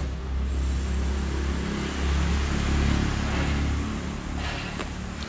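A motor vehicle passing: a low engine rumble that swells, is loudest about two to three seconds in, and fades away.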